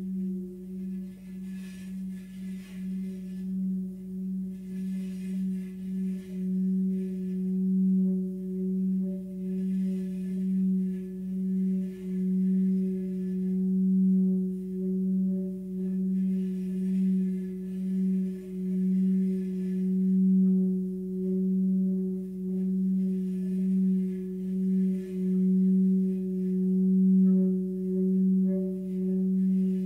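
Large 44 cm hammered Tibetan singing bowl singing a steady, pulsing hum on its 180 Hz tone with fainter overtones above, the wooden mallet worked around the rim so the sound swells gradually louder.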